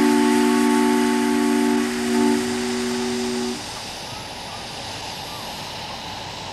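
Chime steam whistle of a large-scale live-steam model of a Union Pacific Big Boy locomotive, sounding a held chord of several notes that dips briefly about two seconds in and stops about three and a half seconds in. Under it and after it comes a steady hiss of escaping steam.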